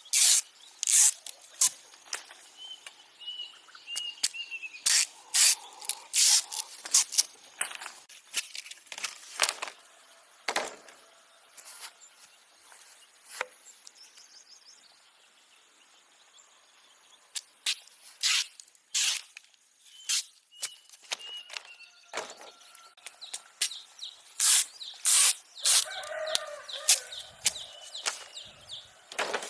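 Irregular sharp knocks and taps in uneven clusters, with a quieter stretch near the middle. A few faint bird chirps, and a rooster crowing briefly near the end.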